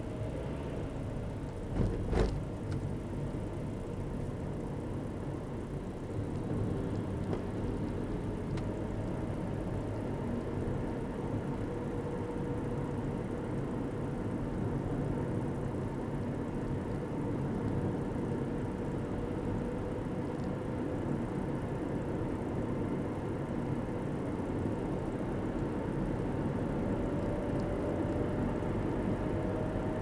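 Car road and engine noise heard from inside the moving car, growing louder about six seconds in as it gathers speed, with a faint whine slowly rising in pitch. A single sharp knock comes about two seconds in.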